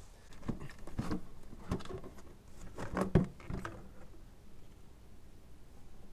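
Plastic air-intake resonator being worked loose and lifted off a GMC Envoy's engine: a series of knocks and rustles over the first three and a half seconds, the loudest a little after three seconds.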